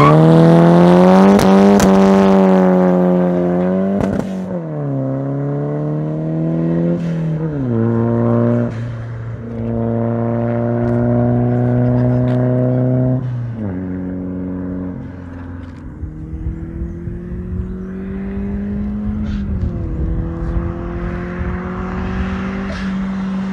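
Straight-piped Nissan 200SX engine revving hard as the car slides through a corner, then pulling away through the gears. The pitch rises and drops sharply about four times at the gear changes, and the exhaust grows fainter as the car moves off.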